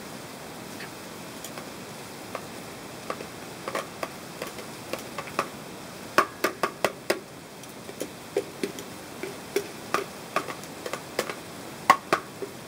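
Metal tongs clicking and tapping as cooked beef is picked off foil on a tabletop grill, a string of sharp clicks over a steady hiss, with the loudest click near the end.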